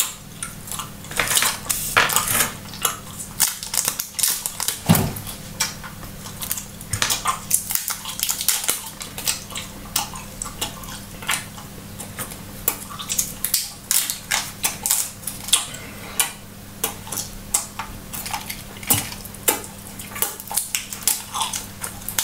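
Paper wrappers being peeled off Hubba Bubba bubble gum cubes, crinkling and snapping in quick, irregular clicks, over a faint steady low hum.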